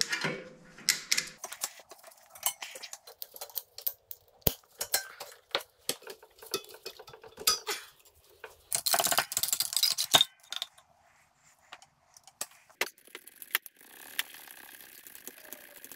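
Hand tools clinking and clicking on metal as vise grips and copper wire compress and unhook a snowmobile's exhaust springs. A string of sharp metallic clicks, with a denser rattle of metal about nine seconds in.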